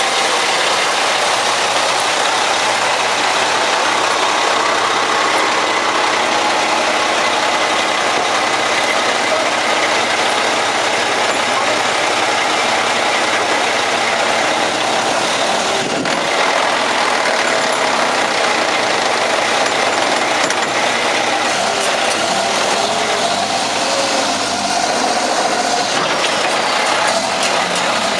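Concrete mixer truck's engine running steadily at idle.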